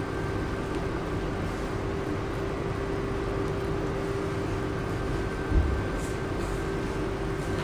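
Steady machine hum with fan-like hiss from the running body-contouring (cryolipolysis/cavitation) machine, one constant mid-pitched tone over the noise. A single dull thump about five and a half seconds in.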